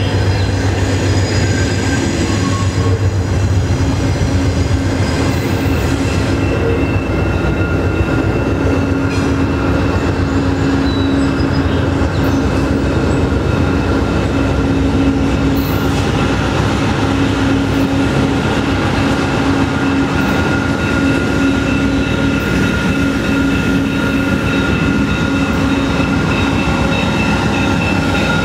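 VIA Rail GE P42DC diesel locomotive running as it leads a passenger train slowly into the station. The engine rumbles steadily, with a steady high squeal from the wheels on the track.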